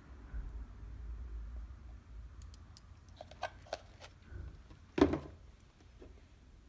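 Kitchen handling sounds: a few light clicks and taps, then a single louder knock about five seconds in.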